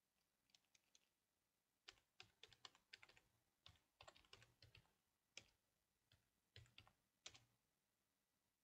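Computer keyboard typing: faint, irregular keystrokes in quick runs, with short pauses between them.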